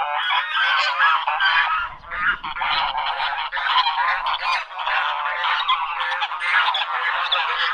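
A flock of ducks quacking, many calls overlapping without a break.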